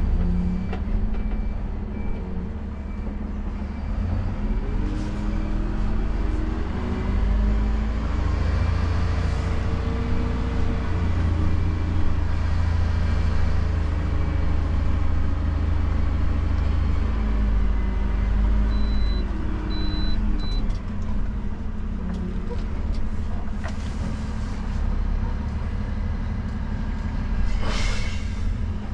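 Diesel engine of a Dennis Eagle Elite refuse truck heard from inside the cab, running steadily with its revs rising, holding for several seconds and falling back. A short hiss comes near the end.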